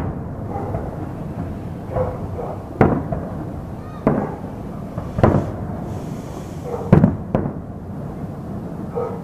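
Aerial fireworks shells bursting in a string of about six bangs, irregularly spaced, the loudest about seven seconds in.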